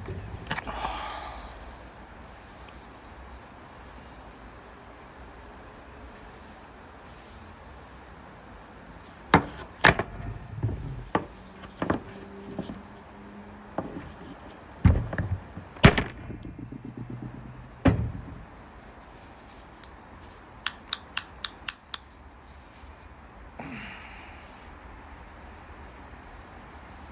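Clicks, knocks and light thuds of a circular saw's plastic housing and parts being handled and pushed back into place, including a quick run of about six clicks late on. Behind them a bird repeats a short, high, descending chirp every couple of seconds.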